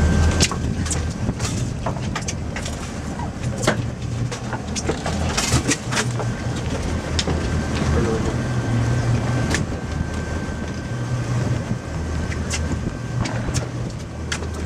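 Boat engine running steadily, a low hum, with wind noise on the microphone and scattered sharp clicks throughout.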